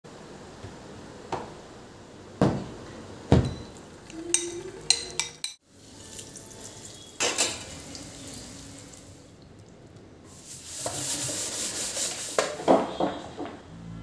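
A string of short kitchen sounds: a few sharp knocks and clinks of things being handled and set down, then a stretch of oil sizzling as dough balls fry in a steel wok, with more clinks near the end.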